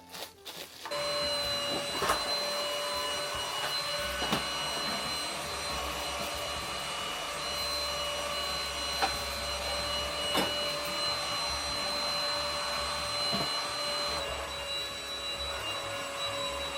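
A new vacuum cleaner switches on about a second in and runs steadily with a high motor whine. A few sharp ticks sound over it, and its pitch drops slightly near the end.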